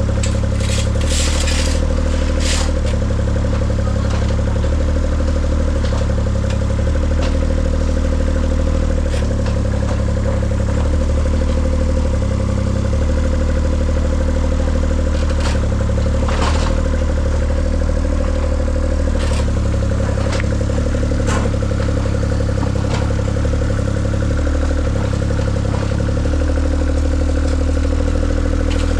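An engine running steadily, with occasional short clicks and clatter over it.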